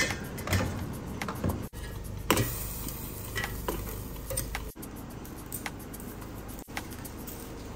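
Kitchen utensils clinking and knocking against pots and dishes while stew is cooked: scattered sharp clicks over a steady low background.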